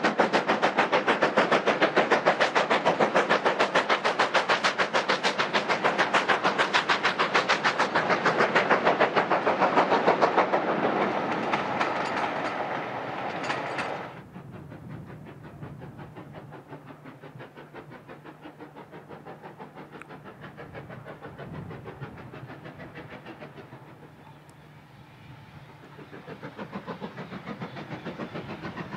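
B1 class 4-6-0 steam locomotive's two-cylinder exhaust beating rapidly and loudly as it passes close by, then fading away. After a sudden cut the train is heard faint and distant, and it grows louder again near the end as it approaches.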